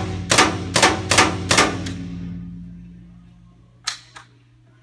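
Magazine-fed paintball marker firing about six shots in under two seconds, each a sharp pop with the room's echo trailing off after the last. A sharp click follows near the end.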